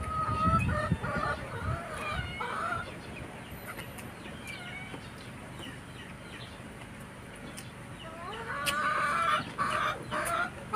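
Backyard chickens clucking, with short wavering calls in the first few seconds and a louder, denser run of calls near the end.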